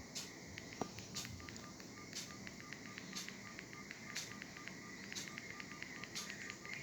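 Olmio Pet A02 mobile phone's ringtone playing faintly through its small speaker: a run of quick, evenly spaced electronic beeps, with a sharper click about once a second.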